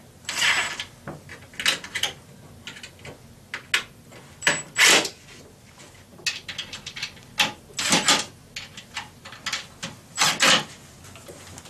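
Cordless impact driver in a dozen or so short trigger bursts, the longest under a second, driving pan-head screws snug into the cabinet's interlocking metal brackets as the box pulls tight.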